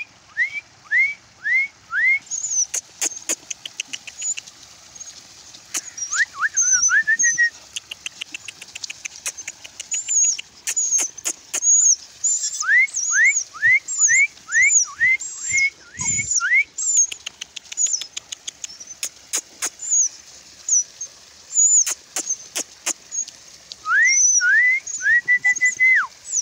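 Birds chirping and whistling: a continual twitter of high chirps, with runs of short rising whistled notes repeated about three times a second in several bouts. Scattered sharp clicks come through as well.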